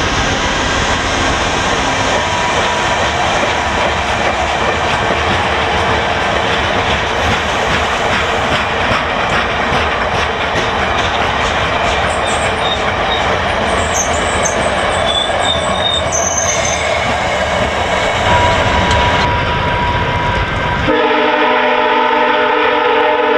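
Stainless-steel passenger train cars rolling slowly past on jointed track: steady wheel-and-rail rumble with clickety-clack, and a faint high wheel squeal in the middle. Near the end the rumble fades and the locomotive's horn sounds a steady chord ahead of the train.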